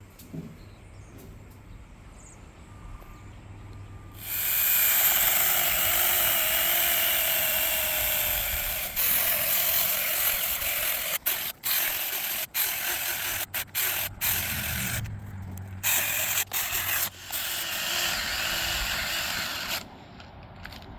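Angseen 6-inch battery mini chainsaw starting about four seconds in and running under load as it cuts wood. The saw stops briefly several times in the middle, then cuts off shortly before the end.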